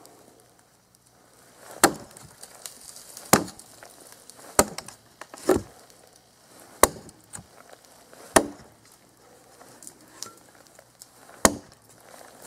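Cold Steel Trail Hawk tomahawk chopping into a dead log: seven sharp blows about one to one and a half seconds apart, with a longer pause before the last one.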